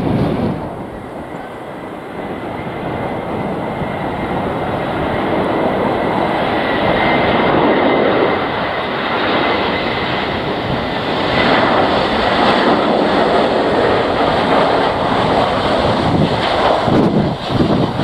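Jet engines of an easyJet Airbus A320-family airliner: a steady rush with a thin high whine, dropping away in the first couple of seconds and then building again as the aircraft comes in to land.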